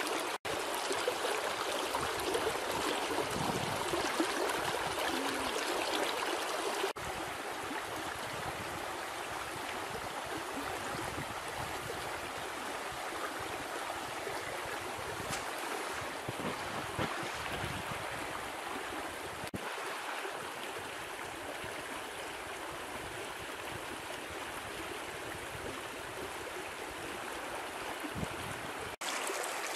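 Steady rush of flowing stream water, slightly quieter after about seven seconds, with brief abrupt breaks in the sound.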